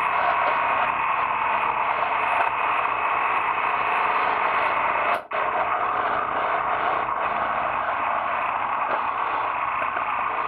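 Steady wind and road rush picked up by a camera mounted on a moving motorcycle, a continuous hiss with little engine detail; the sound drops out for a split second about five seconds in.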